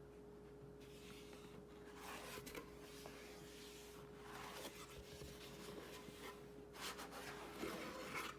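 Faint rustling and scraping sounds, a few short spells of them, over a steady hum.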